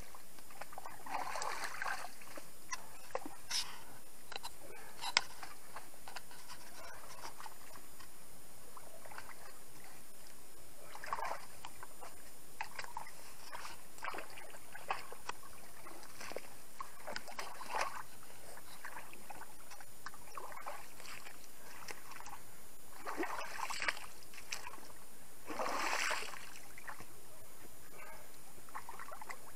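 Hands scooping and splashing in muddy water around the wheel of a stuck ATV, in scattered bursts.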